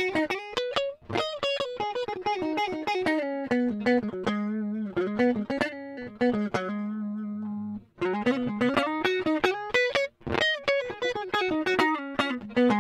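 Lavish Hollovish semi-hollow electric guitar played on a clean tone with both pickups selected, picking a single-note lead line. A few seconds in, one low note is held with wavering vibrato, and the phrase picks up again about eight seconds in.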